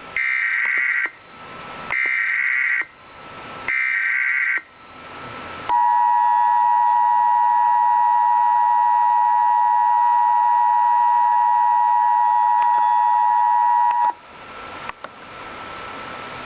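Emergency Alert System tones announcing a severe thunderstorm warning: three short bursts of SAME digital header data, each about a second long, then the two-tone attention signal, a steady loud dual tone held about eight seconds that cuts off abruptly. Faint hiss with a few clicks follows.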